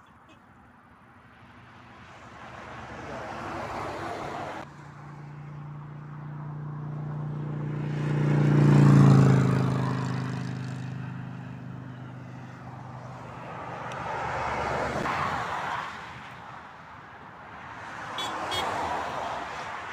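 Motor-vehicle traffic passing on a motorway, one vehicle after another swelling up and fading away. The loudest pass, about halfway through, carries a strong engine note that drops slightly in pitch as it goes by.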